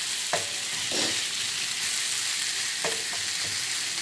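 Sliced bitter melon sizzling in a nonstick frying pan on low heat, stirred with a wooden spatula that scrapes and knocks against the pan about four times.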